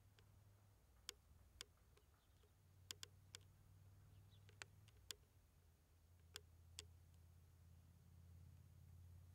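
Near silence: a faint low hum with about ten short, sharp clicks at uneven intervals.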